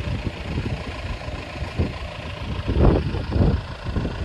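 Wind buffeting a phone microphone in irregular low gusts, the strongest about three seconds in.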